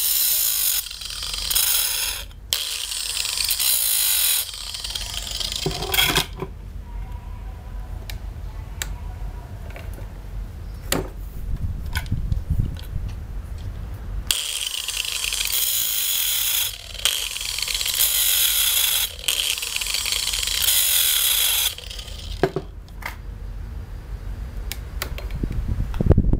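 Angle grinder disc grinding the steel cutters of a chainsaw chain on its bar, in stretches of harsh, hissing metal grinding, with quieter spells of several seconds in the middle and near the end.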